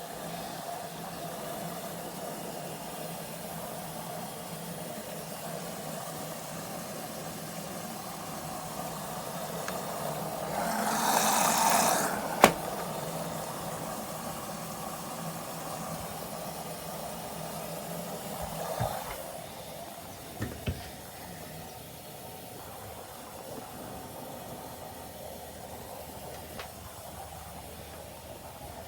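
LG washing machine running: a steady hum that swells into a louder hiss about ten seconds in, with one sharp click at its peak. About two-thirds of the way through, the hum drops away and a few knocks follow.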